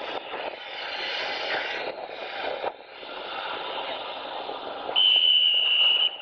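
Steady harbour and ship-deck noise as a car ferry unmoors. About five seconds in, a steady high-pitched beep sounds for about a second.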